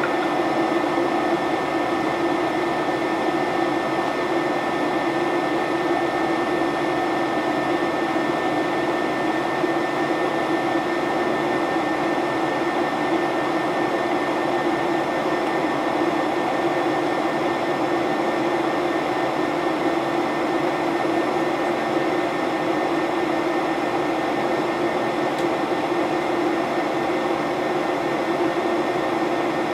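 Steady in-flight cabin noise of a Boeing 737-800 heard beside its CFM56-7B turbofan engine: an even rush of engine and airflow with a low hum and a thin high tone held throughout.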